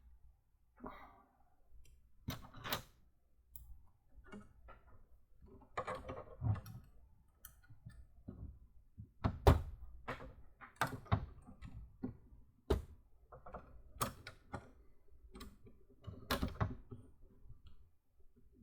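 Plastic LEGO Technic parts being handled and pressed together: scattered irregular clicks and knocks, with a louder knock about halfway through.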